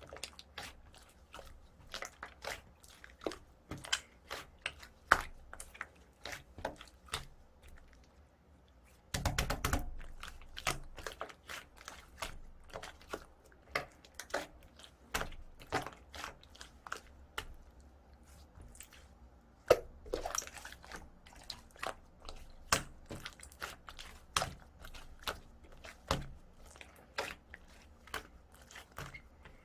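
Slime being squeezed and pressed by hand, giving irregular crunchy clicks and pops, with a dense burst of crackling about nine seconds in.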